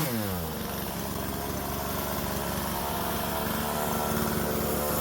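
Husqvarna 120 Mark II two-stroke chainsaw coming off full throttle as a cut ends: the revs fall over about half a second, then the saw idles steadily.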